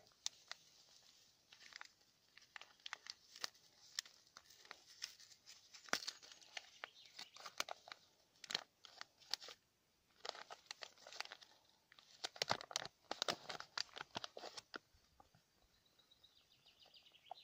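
Paper flour bag being opened by hand, crinkling and tearing in irregular bursts of crackles, then going quiet near the end.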